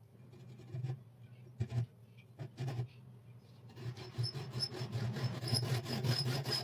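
Abrasive rubbing on steel scissor blades: a few scattered scraping strokes, then a quicker, steadier run of strokes from about four seconds in.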